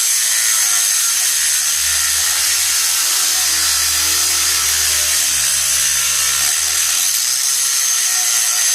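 Angle grinder with a cut-off wheel cutting into a steel I-beam: a loud, steady high whine and hiss of the abrasive wheel on the steel.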